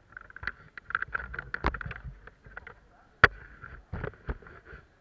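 Scattered sharp cracks and knocks of an airsoft game, irregular rather than a rapid burst, with one loudest crack about three seconds in.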